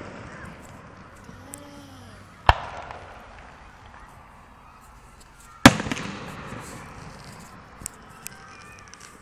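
Fireworks shells bursting in the sky: two loud booms about three seconds apart, each trailing off in a rolling echo, then two small cracks near the end.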